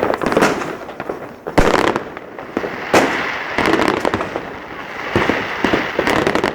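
Fireworks going off: a string of sharp bangs and crackling, the loudest bangs about a second and a half in and again near three seconds.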